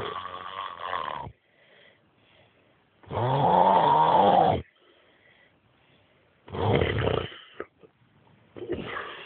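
Snoring: four snores about three seconds apart. The second, near the middle, is the longest and loudest, its pitch wavering up and down.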